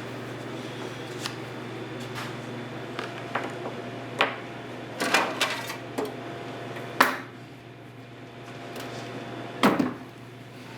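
Irregular knocks and clicks of beekeeping equipment and honey frames being handled and set down, about ten sharp ones with the loudest near the middle and near the end, over a steady low hum.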